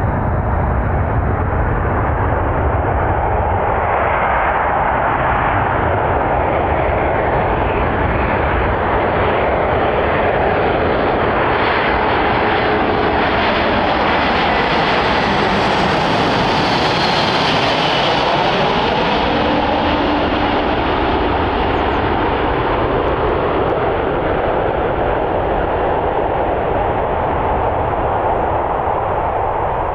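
Boeing C-17 Globemaster III's four Pratt & Whitney F117 turbofan jet engines on landing approach. The jet noise builds as the aircraft passes low overhead about halfway through, with a sweeping whoosh and a bright whine at its closest. It then eases slightly as the aircraft descends toward the runway.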